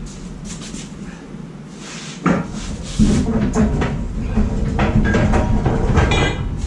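Casters of a home-built steel gantry crane, carrying a roughly 5,000-pound lathe, rolling and rumbling across the shop floor as the crane is pushed, with some clatter. A single knock comes a little over two seconds in, and a brief squeak near the end.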